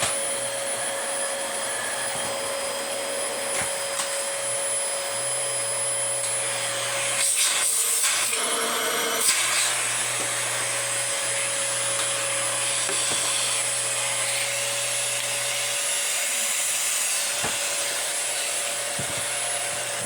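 Dyson DC25 Animal upright vacuum cleaner running steadily: a rushing airflow with a high motor whine. About seven seconds in, the steady tone breaks for roughly two seconds with a brief louder rush of air before it settles back.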